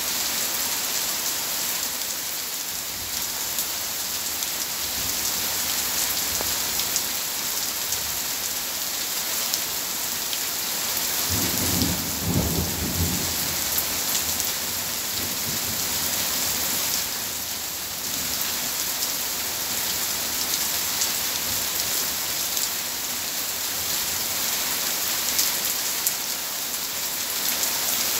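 Heavy rain pouring onto paving, steps and garden foliage, a steady dense hiss of splashing. About halfway through, a low rumble of thunder swells and fades over a couple of seconds.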